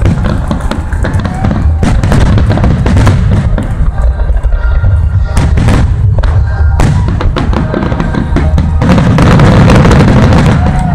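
Aerial fireworks shells bursting in quick, overlapping succession: a near-continuous run of loud booms and sharp reports.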